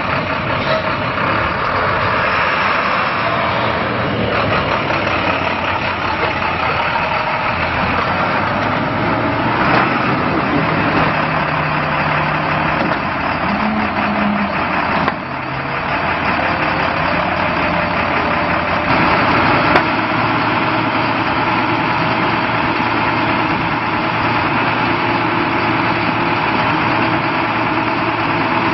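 2015 International 4300 service truck's 7.6-litre diesel engine running steadily at idle.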